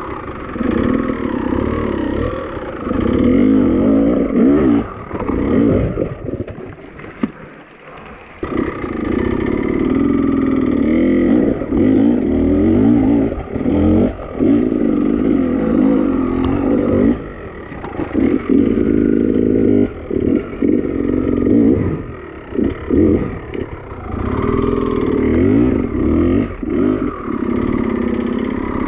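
Beta enduro motorcycle engine revving up and dropping off again and again while riding rough off-road terrain, with brief lulls between throttle bursts, the longest about seven seconds in.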